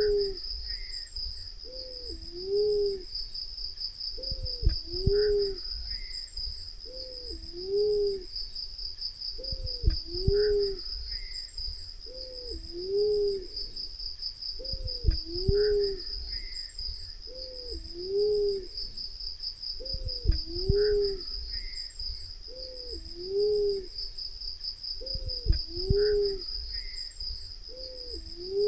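Black-naped fruit dove calling: low hooting coos, each a rising-then-falling note, given in pairs that repeat about every five seconds as a lure call. A steady high insect buzz runs underneath, and a dull low thump comes at the start of each repeat.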